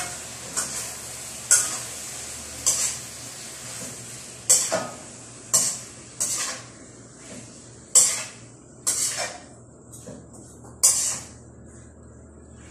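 Shrimp and cabbage stir-frying in a wok: a metal spatula scrapes and clanks against the pan about once a second, over a steady sizzle.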